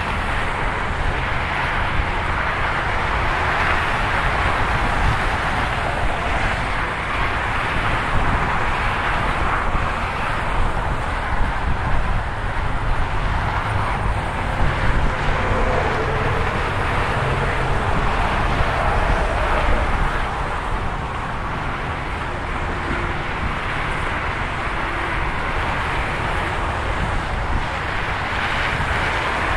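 Freeway traffic heard from the roadside: a continuous rush of tyres and engines from cars and trucks passing at speed, swelling and easing as vehicles go by.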